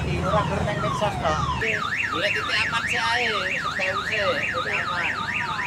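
An electronic alarm or siren tone warbling rapidly up and down, about three times a second, starting nearly two seconds in. A low drone stops just before it starts.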